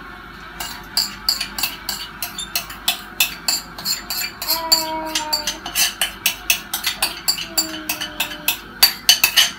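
A spoon clicking quickly against a glass mixing bowl, about four or five clicks a second, as pancake batter is scraped out of the bowl into a frying pan.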